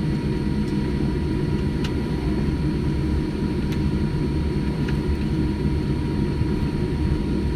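Steady cabin noise inside a Boeing 787-9 on the ground after touchdown: a low, even rumble with a faint steady whine above it and a few faint ticks.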